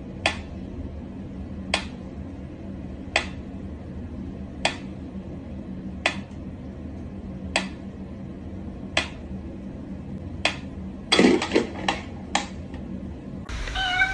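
Mechanical pyramid metronome ticking slowly, one sharp click about every second and a half. Near the end comes a quick run of several louder, irregular clicks and knocks.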